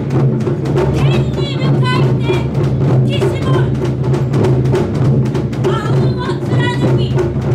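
Japanese taiko ensemble of nagado-daiko barrel drums struck with sticks in a dense, fast, driving rhythm. Performers' shouted calls (kakegoe) ring out over the drumming.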